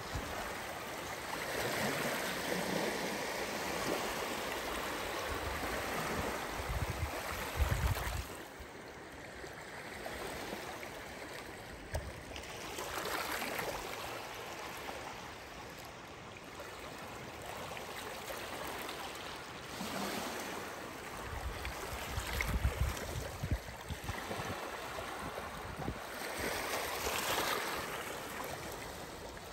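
Small waves of Lake Superior washing and lapping against a rocky shore, a steady rush that swells every several seconds. A few low rumbles come and go under it.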